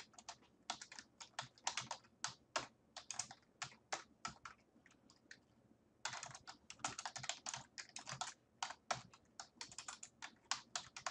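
Typing on a computer keyboard: a run of quick key clicks, a short lull about five seconds in, then a faster, denser run of keystrokes.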